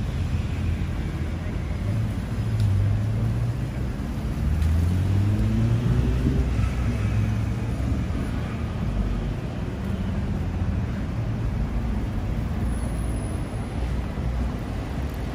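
City street traffic: a steady low rumble of passing cars, with one vehicle's engine rising in pitch as it accelerates about four seconds in.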